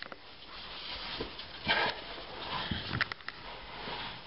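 Heavy breathing of a person crawling prone through a tight cave squeeze, with scuffs of body and clothing against the rock. A stronger breath comes a little under two seconds in, and a few sharp clicks follow about three seconds in.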